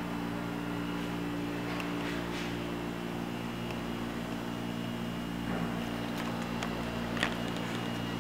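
Steady hum of a workshop machine's electric motor running at constant speed, with a few faint clicks after the middle.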